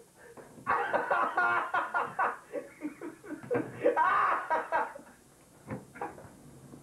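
A man laughing in choppy bursts for about four seconds, then a couple of faint knocks near the end.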